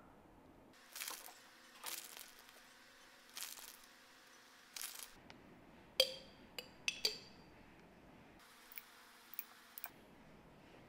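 Quiet food-prep handling on a metal muffin tin: four short soft rustles as shredded mozzarella is sprinkled from its plastic bag into salami cups. About six seconds in come four sharp clicks with a brief ring as cherry tomatoes and olives are pressed into the tin, then a few lighter ticks.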